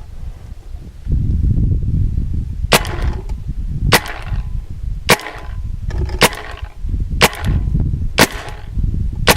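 JT paintball gun firing seven single shots about a second apart, each a sharp pop, over a low rumble. The competition-grade paintballs fire cleanly without breaking in the barrel.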